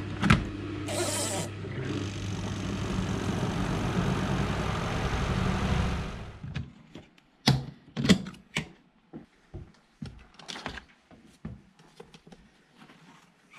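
Portable twin-tub washing machine's spin dryer: the lid knocks shut, then the spinner runs with a steady motor hum and whir that dies away about six seconds in. After that come several knocks and clunks as the spin-tub lid is opened and the spun clothes are handled.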